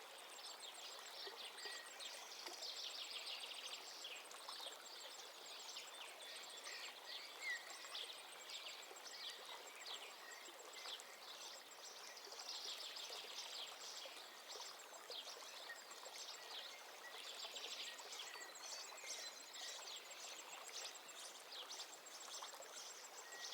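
Faint nature ambience: many small birds chirping over a soft hiss of running water, with a thin, high, evenly pulsing trill.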